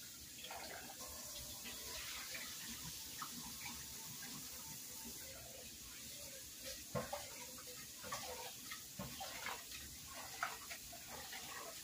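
Kitchen faucet running into a metal pot in the sink as rice is rinsed, with a few sharp knocks of the pot against the sink, the loudest about seven and ten and a half seconds in.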